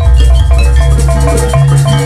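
Live gamelan music accompanying a Janger performance: metal mallet-struck instruments playing quick runs of short notes over drums and a heavy, steady deep bass.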